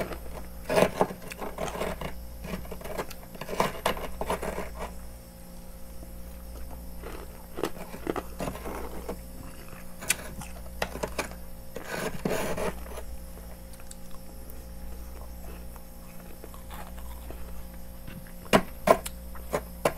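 A metal spoon scraping and scooping packed freezer frost in short, irregular crunchy bursts, with a few sharp clicks near the end. A steady low hum runs underneath.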